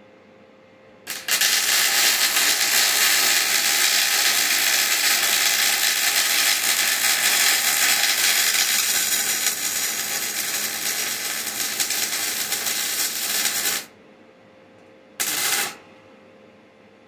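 Welding arc crackling in one long run of about twelve seconds that stops abruptly, then a second short run of about half a second, as a car's rear bumper is welded.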